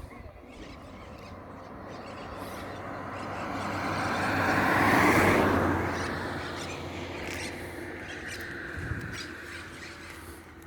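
A vehicle passing on the road: a rushing sound that swells to its loudest about halfway through, then fades away as it drops in pitch.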